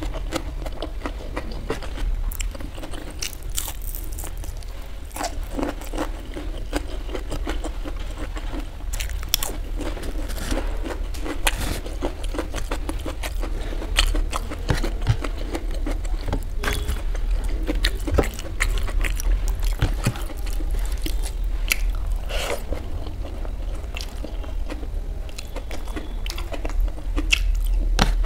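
Close-miked eating: mouth sounds of chewing fried rice and Manchurian balls, with crunching of fried pakoda and fingers scraping rice on a steel plate, as a string of small clicks and crackles.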